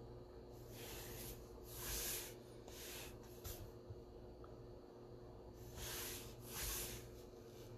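A few soft breaths close to the microphone, in pairs, over a faint steady hum, with a couple of faint clicks about three and a half seconds in.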